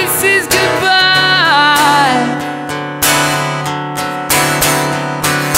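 Acoustic guitar strumming and letting slow chords ring, about one strum a second. Over the first two seconds a held wordless vocal note slides down and fades out, leaving the guitar alone.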